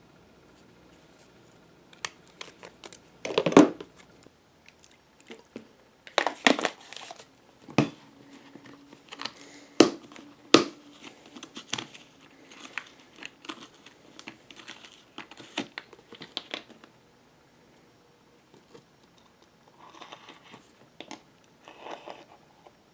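Close handling noises: a run of clicks, scrapes and crinkling, the loudest a short crunch about three and a half seconds in, from a steel rotary leather punch worked on leather and then a plastic bottle cap being twisted open. There is a lull, then softer scraping of the cap near the end.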